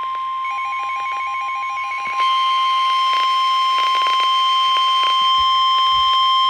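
Emergency Alert System attention tone: one long, steady, high-pitched alarm tone, signalling that an emergency warning is about to be broadcast. For about the first two seconds a quicker beeping runs over it. At about two seconds a second, higher steady tone joins in and the sound gets louder.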